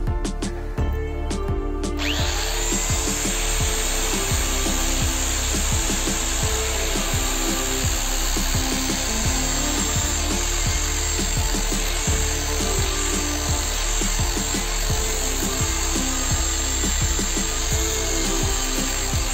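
Electric angle grinder starts up about two seconds in and runs steadily with a high whine, its disc grinding the steel knife blade and throwing sparks. Background music plays throughout.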